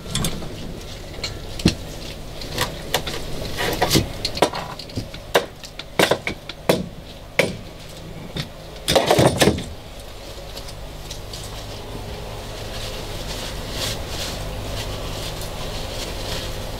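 Irregular metal clicks and knocks from hand work on an outboard motor's steering linkage, with a louder cluster about nine seconds in. After that comes a steady rustle as grease is wiped off the steering rod with a paper towel.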